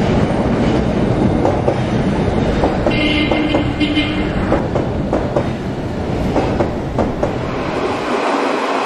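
Subway train running along the track, a steady clatter of wheels over rail joints, with a brief high-pitched squeal about three seconds in.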